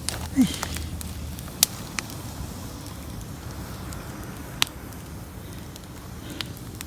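Bonfire of uprooted plants and roots burning, a low steady hiss with scattered sharp pops a second or more apart.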